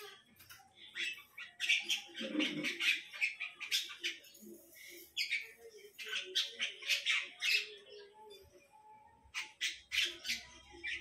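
Animal squawking and chirping in short, rapid clusters, with a lower, fuller call about two and a half seconds in.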